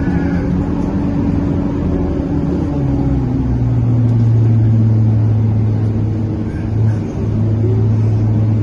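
Cabin of a moving Scania K230UB Euro V bus: a steady drone of the diesel engine and an unusually loud radiator cooling fan. A humming tone falls slightly in pitch over the first few seconds, and a deeper hum fades, then comes back strongly about three seconds in.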